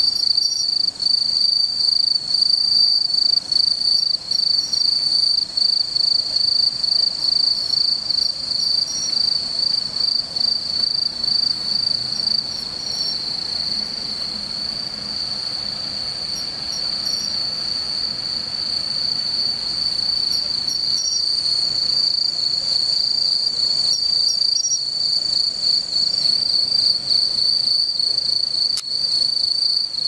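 Japanese bell crickets (suzumushi) singing: a steady, high, ringing trill that pulses finely and carries on without a break.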